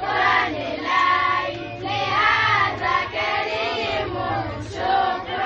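A group of women and girls singing together in chorus, in short repeated phrases, as a welcome song.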